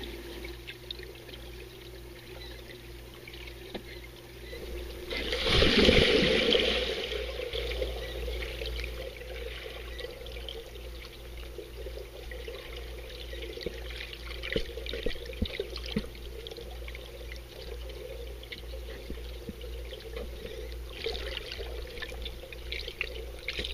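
Pool water heard underwater: muffled churning with scattered crackling pops of bubbles, and a loud surge of water and bubbles about five to six seconds in.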